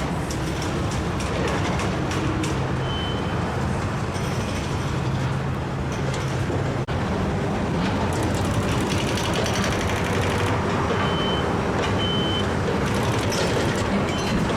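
Steady heavy-vehicle and traffic noise with a low hum, and a few short high beeps from a reversing alarm.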